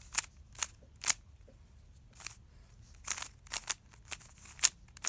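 Rubik's cube layers being twisted by hand: about ten sharp plastic clicks at uneven intervals, with a quicker run of turns around three to four seconds in.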